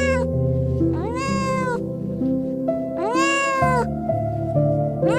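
A cat meowing repeatedly, about one meow every two seconds, each rising and then falling in pitch, over background music.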